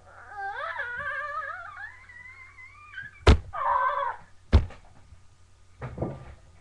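A boy's long, high-pitched wordless yell rising in pitch, then two sharp thumps from the scuffle about a second apart, with a short cry between them, and a softer bump near the end.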